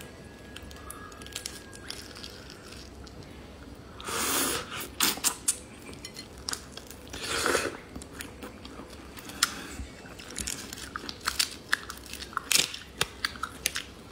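Close-up eating of an Argentine red shrimp. About four seconds in come two long loud slurps as the shrimp head is sucked, then a run of sharp wet smacks and crunching clicks of chewing.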